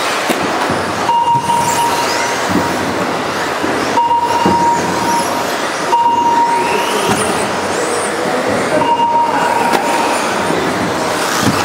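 Radio-controlled off-road buggies racing on a carpet track: their motors whine, rising and falling with the throttle, over a steady reverberant din. A short steady beep sounds five times, roughly every two to three seconds.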